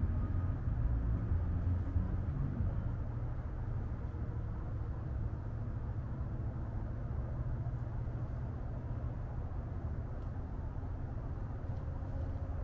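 Steady low outdoor rumble, a little stronger in the first few seconds, with no distinct events.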